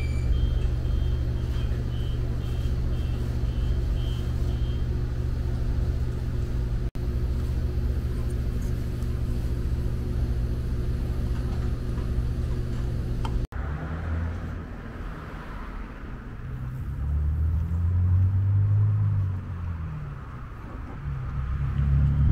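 A steady low machine hum with a repeated high beep, about two a second for the first five seconds. After a cut, street traffic: passing cars make a low rumble that swells and fades twice.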